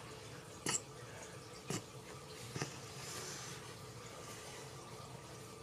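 Pen drawing on sketchbook paper: three light ticks about a second apart, then a faint scratching of strokes.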